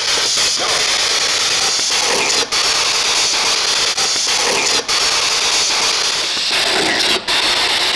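Spirit box sweeping through radio stations: a steady hiss of static, broken by a few brief dropouts as it scans.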